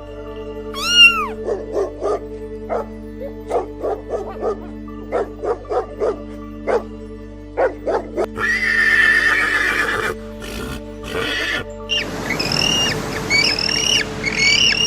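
A cat meows once about a second in. A horse then neighs in a run of short whinnying pulses, and near the end a bird chirps several times in quick rising notes. Steady background music plays underneath.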